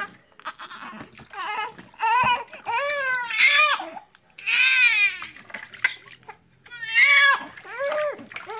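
Newborn baby crying during a bath, in a run of short wailing cries with brief gaps; the longest and harshest cry comes about four to five seconds in.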